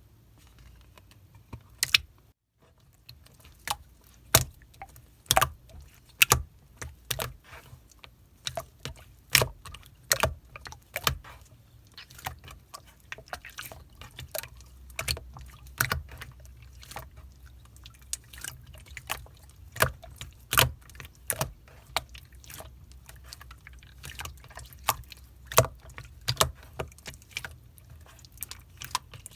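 Clear slime being squeezed and pressed by hand, giving irregular wet, sticky pops and clicks, about one or two a second, some much louder than others.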